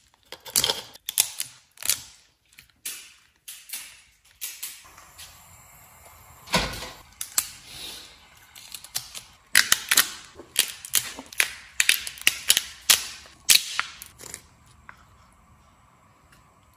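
A raw southern rock lobster's shell cracking and snapping as it is broken apart by hand and its tail meat pried out, in irregular runs of sharp cracks. The cracking stops a couple of seconds before the end.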